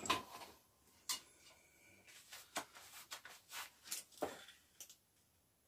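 Scattered light clicks and knocks, irregularly spaced, as the casing and parts of a CRT computer monitor are handled and worked apart.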